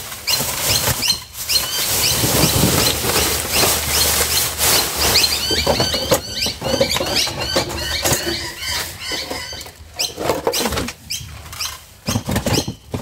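Plastic rubbish bags rustling and crinkling while a litter-picker grabber tool pokes and knocks among them inside a metal dumpster, with frequent sharp clicks and many short, high squeaky chirps throughout.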